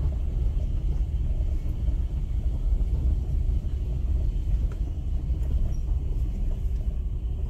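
Steady low engine and road noise, heard from inside a moving car.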